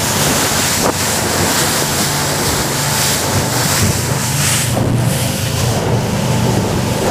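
K-13 motorboat running fast: a steady engine drone under rushing water and spray from the wake, with wind buffeting the microphone.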